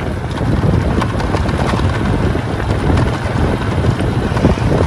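A vehicle riding along a gravel road: a steady engine-and-tyre rumble with wind buffeting the microphone.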